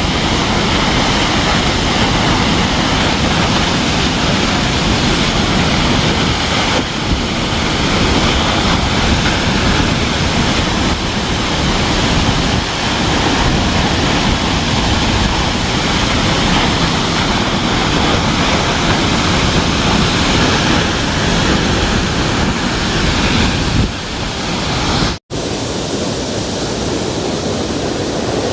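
Pulhapanzak waterfall: falling water making a steady, loud rushing noise. Near the end it breaks off for an instant and resumes a little softer and duller.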